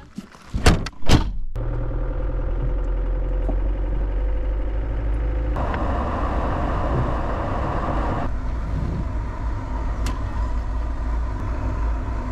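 A few sharp knocks in the first second or so, then a Land Rover Defender on the move: steady low engine and road rumble, with a stretch of louder road hiss for a few seconds in the middle.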